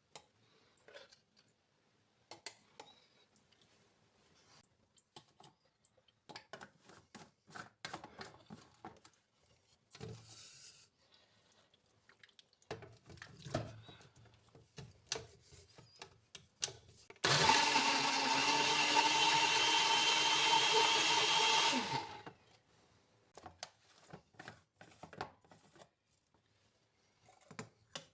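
Light kitchen clicks and knocks, then an electric blender motor runs steadily for about five seconds and winds down as it is switched off.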